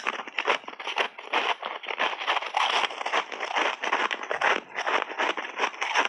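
Close-up crunching of frozen mixed-berry ice balls being bitten and chewed. The crunches come fast and irregular, with no pause.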